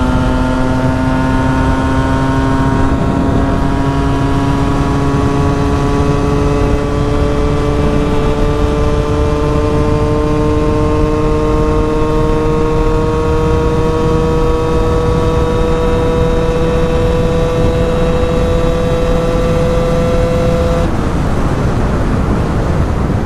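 KTM EXC 125's two-stroke single-cylinder engine held at high revs under full throttle, its pitch climbing slowly as the bike gathers speed, over a heavy rush of wind and road noise. Near the end the engine note drops away, leaving mostly the wind rush.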